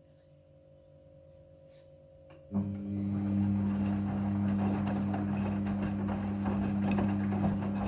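Front-loading washing machine in its rinse cycle: after a quiet pause, about two and a half seconds in, a steady electric hum switches on suddenly together with the rush and crackle of water.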